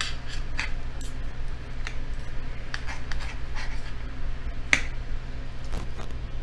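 Stainless knife and fork clicking and scraping against a ceramic plate while cutting through breaded fried tomato slices: a dozen or so short, sharp clicks at uneven intervals, the loudest a little before five seconds in. A steady low hum runs underneath.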